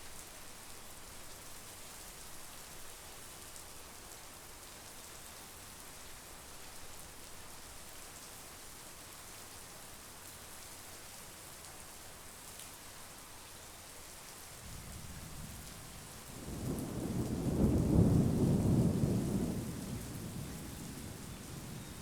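Steady monsoon rain falling, with a roll of distant thunder that builds about two-thirds of the way in, peaks as a deep rumble for a few seconds, then dies away near the end.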